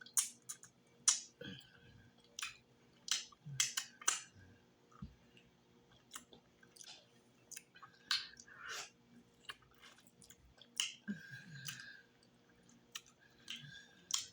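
Close-miked chewing: a person eating with short, irregular mouth clicks and smacks, several every second, with brief pauses.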